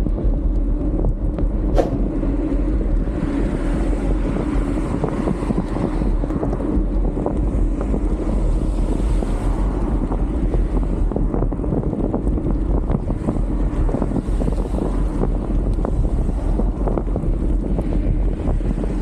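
Steady wind rushing over the microphone of a camera on a moving bicycle, with tyre noise and small knocks from the rough road surface.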